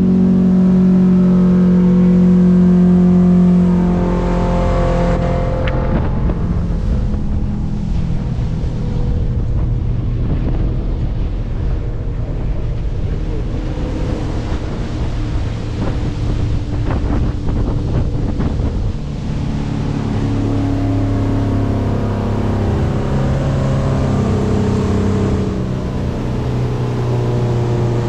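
Motorboat engine running steadily. Its pitch drops after about four seconds and shifts again several times near the end.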